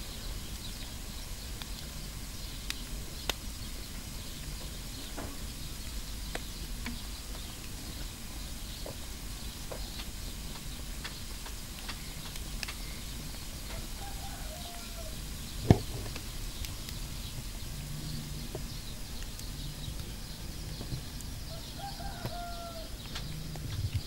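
Wood logs burning in the firebox of a mud bread oven, crackling with scattered small pops, and one sharp, much louder pop about two-thirds of the way through.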